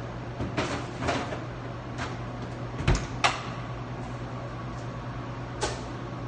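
Knocks and clatter from a baker handling wooden boards and a peel at a bagel oven. There are six or so separate knocks, the two loudest about three seconds in, over a steady low hum.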